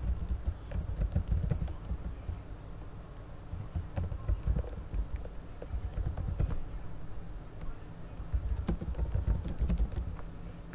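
Scattered light clicks and taps of a computer keyboard, over a low, uneven rumble.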